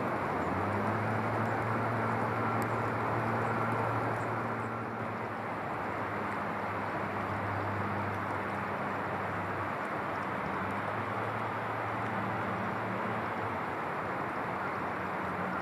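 A steady low engine hum over a constant rushing noise, with no sudden events.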